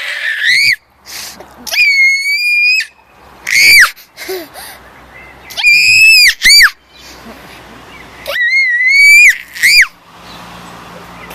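A toddler girl's high-pitched squeals of delight, repeated about half a dozen times every second or two, some short and some held for about a second.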